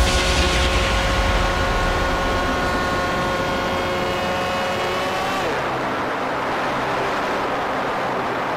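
Onboard sound of an RC plane's 1400KV electric motor and propeller: a steady whine that sags slightly in pitch. About five and a half seconds in, the whine falls away sharply as the motor spins down, leaving the rush of wind over the airframe.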